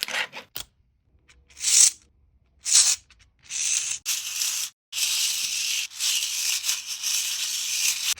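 Small plastic pieces rattling as a 3D-printed object is shaken: two short shakes, then longer bouts of continuous rattling with brief pauses.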